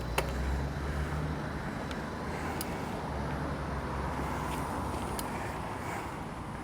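Steady street traffic and road noise with a low rumble, and a few faint sharp clicks.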